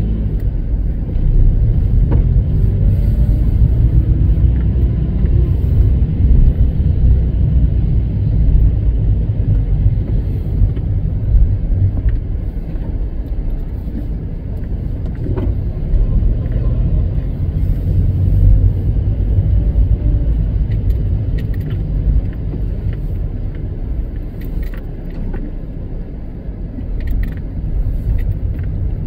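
A car driving slowly, heard from inside: a steady low rumble of engine and tyres on the road, with a few light rattles and ticks.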